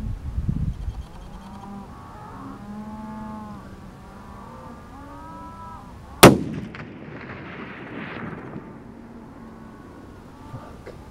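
A series of short animal calls that rise and fall in pitch, then about six seconds in a single loud rifle shot at a coyote, followed by an echo rolling on for about two seconds.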